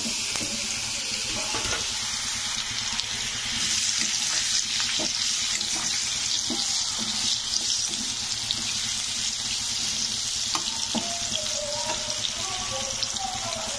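Pumpkin pieces frying in hot oil in a kadai: a steady sizzling hiss with a few light clicks.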